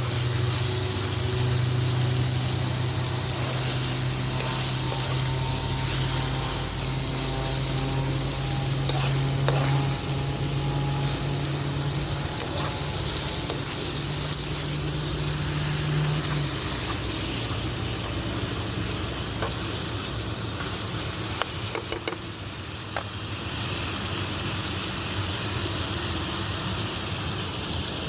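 Food sizzling as it fries in a pan, a steady hiss, with a few sharp knocks and a low hum underneath that stops about two-thirds of the way through.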